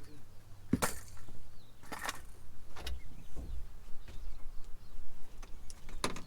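A few sharp knocks and clatters, about four spread over the few seconds, over a low rumble of wind on the microphone.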